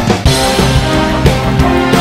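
Background music with drums and sustained instrument notes.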